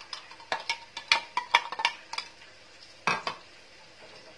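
A metal spoon clinking and scraping against a glass jar while stirring, in a run of light taps, then one louder knock about three seconds in.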